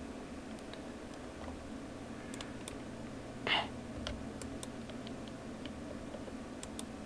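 Faint, sharp clicks of a computer mouse and keyboard at irregular intervals, over a low steady hum. One short, louder noise comes about three and a half seconds in.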